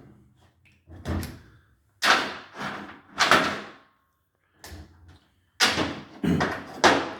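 Heavy metal engine parts, the rocker arm assemblies off a Subaru cylinder head, being handled and set down: a series of sharp clanks and knocks, about seven, spread through the few seconds.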